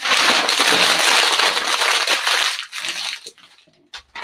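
Paper crinkling and sliding as it is pulled over a towel on a heat press platen, a steady rustle for about three seconds, then one short click near the end.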